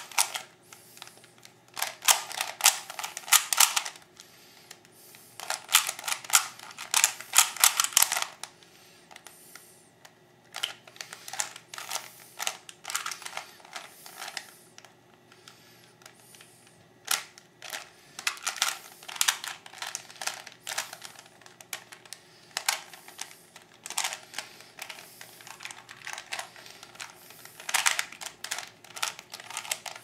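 Plastic Rubik's Cube being twisted by hand, its layers clacking as they turn. Dense flurries of clicks, each a second or two long, over the first eight seconds, then sparser, scattered turns.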